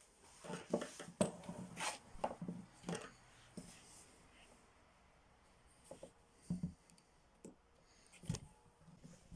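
Light clicks, taps and knocks of hands handling small hard parts on a workbench, busiest in the first few seconds, then a few scattered knocks after a quieter stretch.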